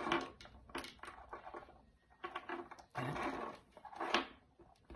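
Small plastic fiber optic fast-connector parts being handled and fitted, with a few sharp clicks and short scraping rustles between them.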